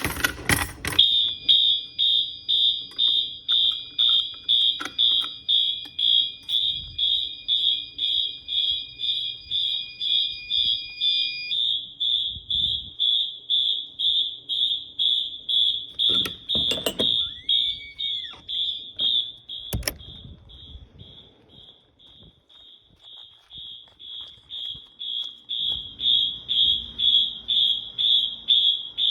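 A BG-8 manual pull station clacks as it is pulled. Fire alarm notification horns then sound a rapid, even pulsing tone, about three beats a second, set off by the pull. For the first dozen seconds a steadier, higher tone sounds under the pulses; past the middle the alarm grows fainter for a few seconds, then comes back loud.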